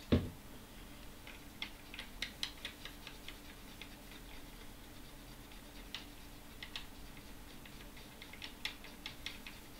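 A soft knock right at the start, then light, irregular ticks and scratches, coming in little clusters, of a hand tool scraping corrosion off the copper pads along the edge of a circuit board.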